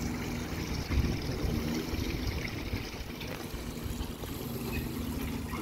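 Small garden pond waterfall splashing and trickling steadily into the pond.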